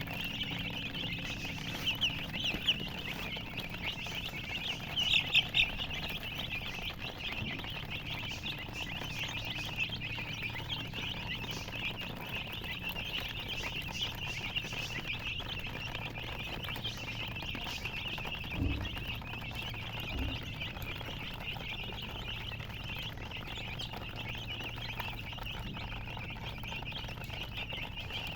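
Many domestic chicks chirping together in a continuous mass of overlapping high peeps, with louder bunches of peeps about two seconds and five seconds in.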